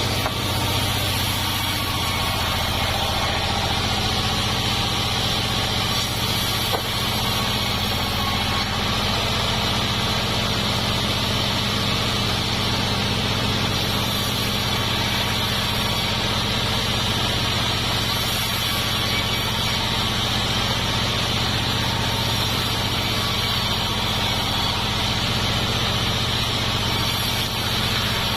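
Sawmill machinery running steadily: a continuous engine hum with a steady higher whine over it and no pauses, with one small click about seven seconds in.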